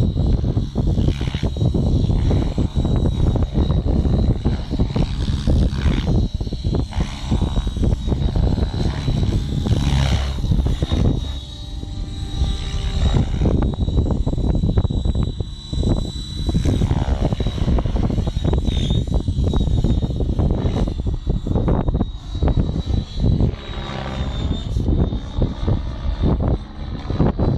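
Align T-Rex 700E electric radio-controlled helicopter in flight: its rotor blades chop and swish over a steady high whine from the motor and drive, and the sound swells and fades several times as the helicopter moves closer and farther away.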